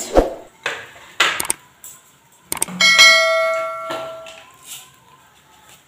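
A notification-bell chime sound effect rings about three seconds in, several pitches together, fading out over about a second and a half. Before it come a few short clicks and hissy bursts.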